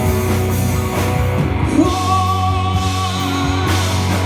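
Live Malay slow-rock band playing the short passage between verse and chorus, with a long held high note from about two seconds in.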